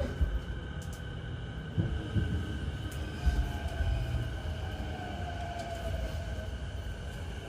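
Inside an E233-8000 series electric train: a low rumble with a steady whine from the Mitsubishi IGBT-VVVF traction equipment, and a tone that rises and then falls in the middle, with a few knocks.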